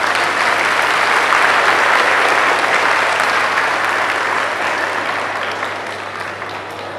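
Audience applauding, the clapping swelling over the first two seconds or so and then gradually dying away.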